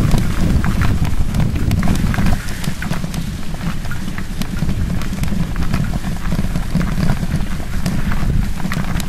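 Steady low rumble of wind and handling noise on a moving handheld camera's microphone, with scattered light clicks and knocks.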